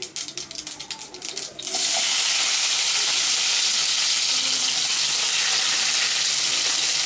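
Mustard, fennel and cumin seeds crackling in hot oil in a kadai, then about two seconds in a sudden loud, steady sizzle as chopped onions go into the oil and begin to fry.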